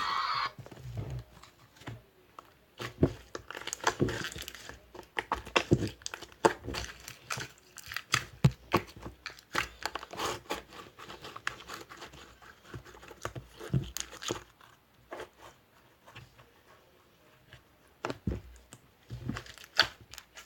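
Irregular crinkling and rustling with scattered clicks, like something being handled or unwrapped. A louder sound with steady tones cuts off about half a second in.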